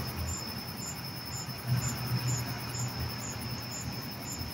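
Night insects, crickets or katydids: a steady high trill with short chirps repeating about twice a second. Underneath is a low, uneven rumble that swells briefly near the middle.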